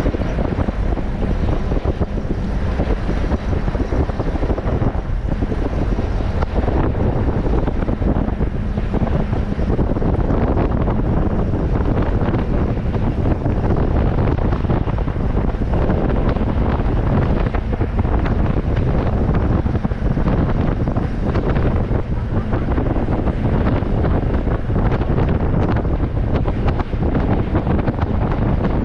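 Wind buffeting the camera microphone over the steady low rumble of a moving safari vehicle.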